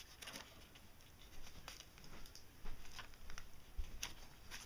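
Hands handling and opening a small cardboard puzzle box: faint, irregular clicks and rustles of cardboard and plastic packaging.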